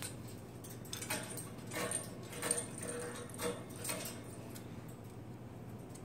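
Plastic cage toys, a yellow ball and a red ring, clicking and rattling as they are handled, with a faint jingle, in a run of light knocks from about one to four seconds in.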